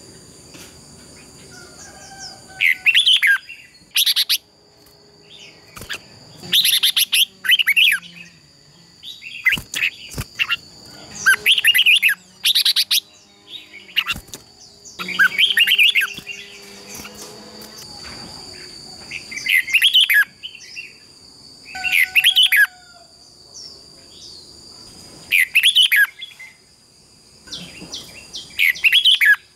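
Red-whiskered bulbul singing in competition: short, loud, warbled phrases repeated every two to three seconds. A steady high-pitched whine runs underneath.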